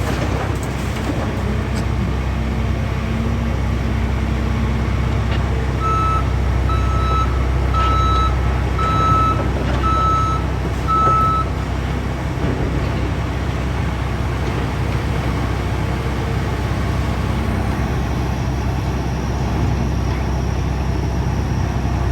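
Demolition machinery's diesel engines running with a steady low rumble. A backup alarm beeps six times, about once a second, from about six seconds in to about eleven seconds in.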